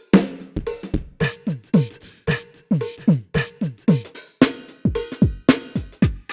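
Sampled drum kit from the Ketron SD90 soundfont playing a quick pattern. Each low hit drops sharply in pitch, like a tom or electronic kick, and crisp high cymbal or hi-hat hits sound over them. About two-thirds of the way through, deeper kick drum hits take over.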